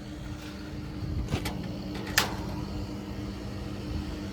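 Steady low hum of running rooftop air-conditioning equipment, with two sharp clicks about one and a half and two seconds in.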